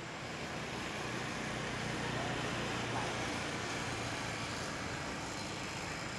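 A road vehicle passing: a low engine hum over tyre and road noise that builds to about the middle and then slowly eases off.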